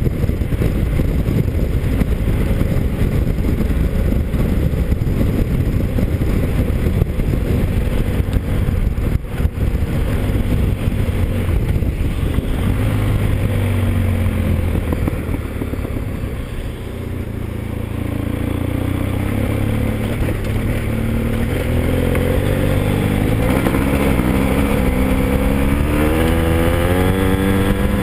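Motorcycle engine running on the move under heavy wind and road noise. It eases off about two-thirds of the way through, then accelerates near the end, its pitch rising in several steps as it shifts up through the gears.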